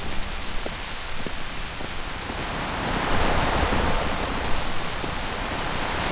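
Steady rain falling, with a few separate louder drops; the rain grows louder about three seconds in.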